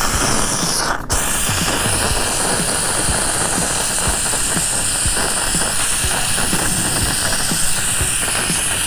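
Handheld steam gun hissing steadily as it jets steam onto an RV's vinyl graphic to soften the adhesive for scraping off, with a brief break about a second in.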